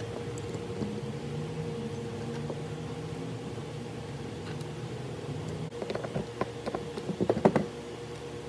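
Light clicks and knocks of an outboard carburetor's metal and plastic parts being handled on a workbench, a quick cluster of them in the last few seconds. A steady hum runs underneath.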